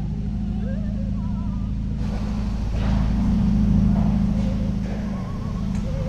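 A low, steady car-engine rumble that grows louder about three seconds in, with wavering vibrato tones drifting over it near the start and the end.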